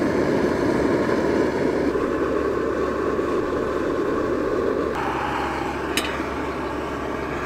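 Portable high-output gas camping burner running steadily at full flame under an aluminium pan, a constant rushing noise. The sound shifts slightly as the pan is tilted, and a light metallic click comes about six seconds in.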